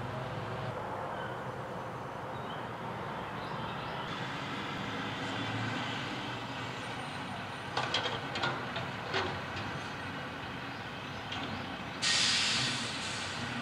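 Front-loader garbage truck's diesel engine running as it pulls up to a dumpster, with a few sharp clanks about two-thirds of the way through. Near the end there is a sudden loud hiss of the air brakes as the truck stops at the dumpster.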